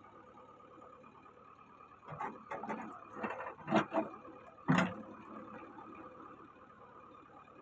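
JCB 3DX backhoe loader's diesel engine running with a steady hum. Between about two and five seconds in, a series of knocks and clatters as the backhoe bucket works the stone pile, with the two loudest knocks close together near the middle.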